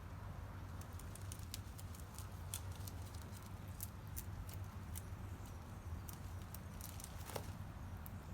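Rabbit chewing tree leaves: a quick run of small, crisp crunching clicks starting about a second in, with one louder crackle near the end.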